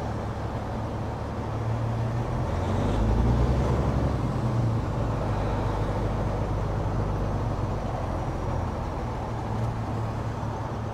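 Caterpillar C15 diesel engine of a Peterbilt 389 truck running in slow traffic, a low steady hum. About two seconds in it pulls harder and grows louder for a few seconds, then settles.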